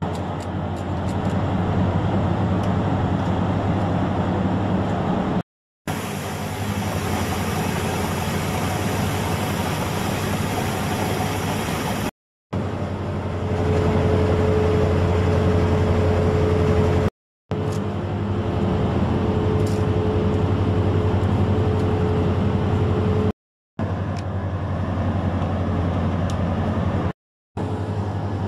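Steady low hum of a ship's engines and machinery running, with a constant higher tone in some stretches. It cuts out abruptly for a moment about five times and resumes unchanged.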